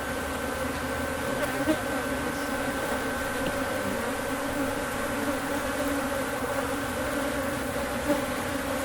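Steady buzzing hum of a honeybee colony in an open hive, with two brief light knocks.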